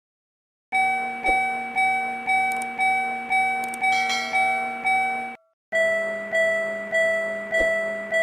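Japanese railroad crossing warning bell (the 'kan-kan' alarm) ringing in even strikes about twice a second. It stops after about five seconds, and a moment later a second, lower-pitched crossing bell rings at the same pace.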